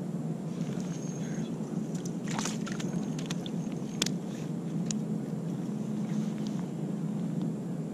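Small clicks and ticks of fishing tackle being handled, a cluster about two seconds in and a sharp click at four seconds, over a steady low rumble.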